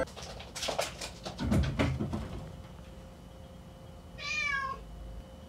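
A domestic cat scrambling on wooden wall shelves, a quick run of knocks and clatters over the first two seconds, then about four seconds in a single meow that drops in pitch at the end.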